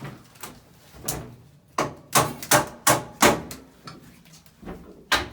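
A quick run of sharp knocks, about five loud ones close together around two to three seconds in, with fainter clicks and knocks before and after.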